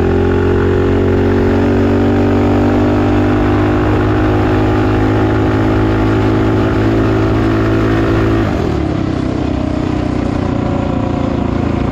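Predator 212-based 223cc stroker single-cylinder engine on a minibike, running at high, nearly steady revs under load. About eight and a half seconds in the throttle eases off and the note drops to a lower, slightly quieter pitch.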